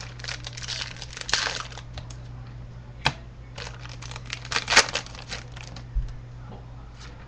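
Trading-card pack wrapper crinkling and tearing as a pack is opened, in two bursts of rustling with a sharp click between them.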